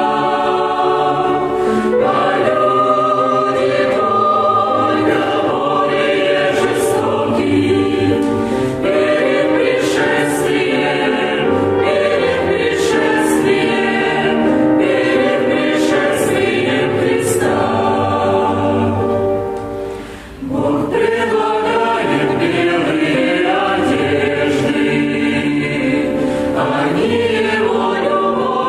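Church choir singing a hymn, with a brief break between phrases about twenty seconds in.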